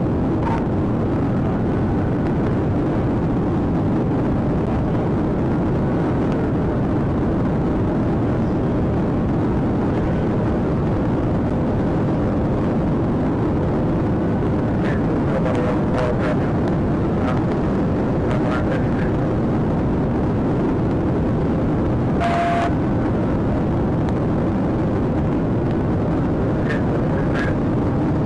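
Steady wind, tyre and engine noise inside a police patrol car travelling at about 130 mph. A few faint clicks come through, and there is a short beep about two-thirds of the way through.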